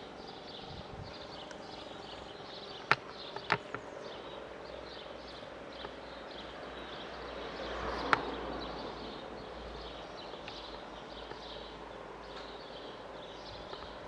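Outdoor background with repeated high chirping. Two sharp clicks come about three seconds in, and a broad swell of noise rises and falls, peaking about eight seconds in. The siren is no longer audibly sounding.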